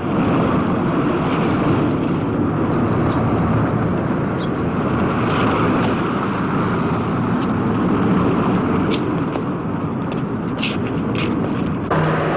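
A car driving at speed, its engine and road noise running steadily, with a few faint clicks near the end.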